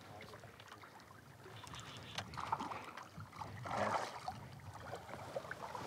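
Hooked arowana thrashing at the water's surface on a fly line, throwing up splashes: two short bursts of splashing, about two and a half and four seconds in.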